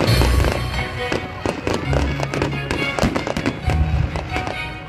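Fireworks bursting: three heavy booms (near the start, about two seconds in and near four seconds) with rapid crackling between them, over music.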